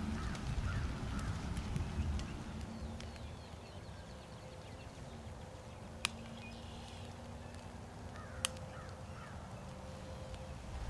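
Two sharp clicks about two and a a half seconds apart from a shotgun that is not firing when the trigger is pulled, with birds calling faintly in the background.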